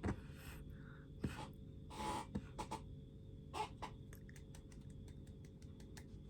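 Scattered light clicks and a few short rustles over a low steady hum.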